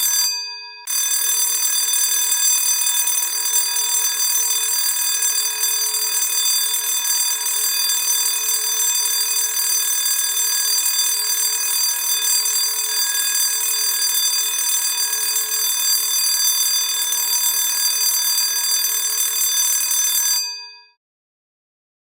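School bell ringing continuously. It breaks off for about half a second just after the start, resumes, and stops about twenty seconds in.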